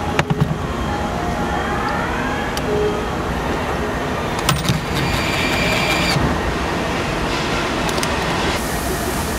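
Car assembly-plant floor noise: a steady mechanical hum of the line, with a few sharp clanks and knocks about half a second in and again around the middle.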